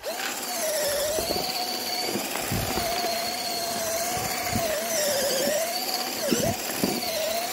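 Cordless drill running steadily as it stirs thick grain groundbait in a bucket: a motor whine that wavers in pitch with the load, over the noise of the churning mix. The whine dips briefly a couple of times near the end.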